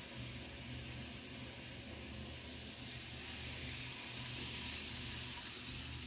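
Kato N-scale D51 steam locomotive and its passenger coaches rolling past on model track: a hiss of metal wheels on the rails and the motor's whir that swells as the train draws close, loudest about five seconds in, over a steady low hum.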